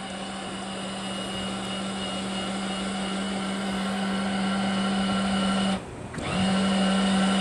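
The electric motor of the yacht's motorized tender-garage hatch, running with a steady hum that grows slightly louder as it works the hatch. It cuts out for a moment about six seconds in, then starts again.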